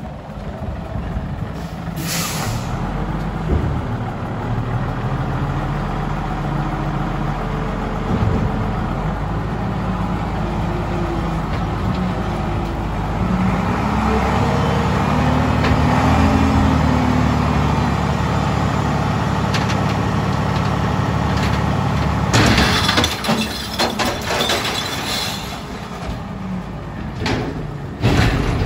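1986 Volvo garbage truck's diesel engine running steadily as the truck manoeuvres, revving up around the middle. Short bursts of air brake hiss come about two seconds in, several times later on, and once more near the end.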